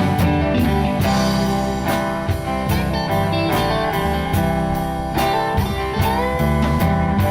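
Instrumental break of a blues-style song: a lead guitar line over bass and a steady drum beat, with a note bent upward about six seconds in.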